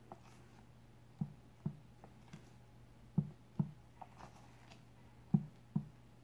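Silicone spatula folding meringue into cake batter in a glass bowl: soft, low thumps in pairs, three pairs about two seconds apart, as the spatula scrapes and turns through the batter.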